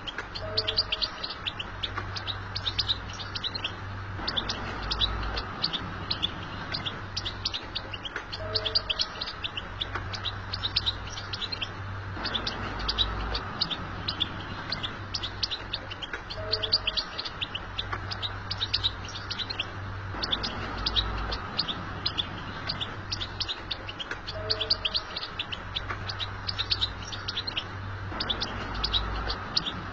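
European goldfinch twittering: a dense run of rapid, high chirps, with the same passage repeating about every eight seconds over a steady low hum.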